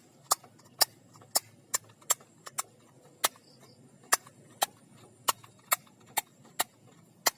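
A series of short, sharp clicks or taps, about two a second and unevenly spaced, over a quiet background.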